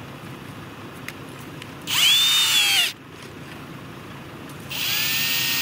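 Power drill spinning an auger bit into the dirt to drill out a bait hole, in two runs: a louder one-second burst about two seconds in, its pitch rising then sagging, and a steadier run starting near the end.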